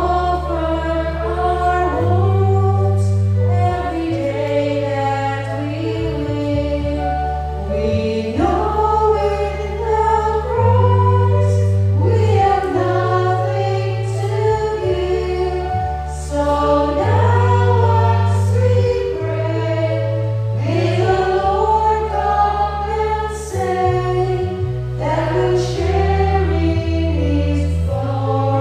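Offertory hymn sung by a choir, with an accompaniment of held low bass notes that change every couple of seconds.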